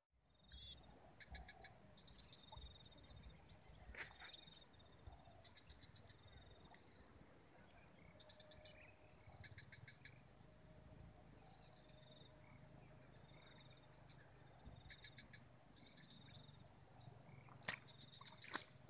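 Faint insect chorus: a steady high-pitched drone with short bursts of rapid chirping every few seconds. A couple of sharp clicks stand out, one about four seconds in and the loudest near the end.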